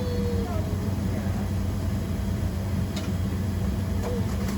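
Steady low hum inside a Boeing 767-300ER's passenger cabin on the ground before departure, with faint passenger voices in the background.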